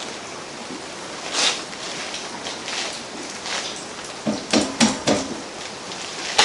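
Metal engine parts and hand tools clinking and clattering on a steel workbench as an engine is reassembled by hand: scattered single knocks, then a quick run of louder knocks a little past four seconds in.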